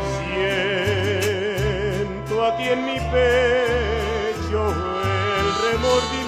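Mariachi ensemble playing a slow bolero: voices singing in harmony over violins, harp, trumpets played with cup mutes and a stepping deep bass line, with steady rhythmic strumming.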